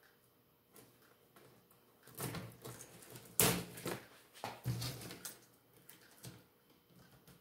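Handling noises: rustles and short knocks as a DRO linear scale and its coiled cable are moved about on cardboard, with the sharpest knock about three and a half seconds in.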